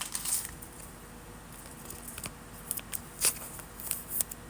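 Football trading cards being handled and slid through by hand: a scatter of light clicks and rustles, with the sharpest click a little past three seconds in.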